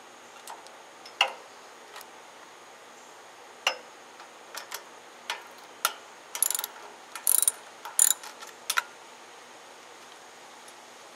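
Hand ratchet wrench from a cheap tool set clicking as it loosens the nuts holding the carburetor on a small generator engine. The sharp clicks come singly at first, then in quick runs from about six to nine seconds in.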